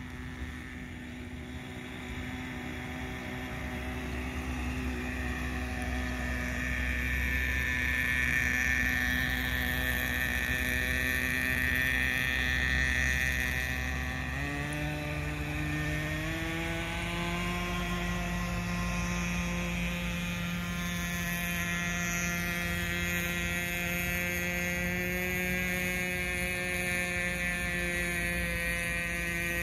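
Nitro RC boat's small two-stroke glow engine running as the boat crosses the water: a steady, high-pitched whine that grows louder over the first several seconds, then climbs in pitch about halfway through and holds at the higher pitch.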